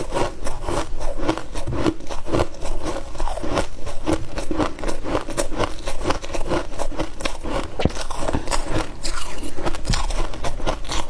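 Close-miked biting and chewing of freezer frost: a dense, continuous run of crisp crunches.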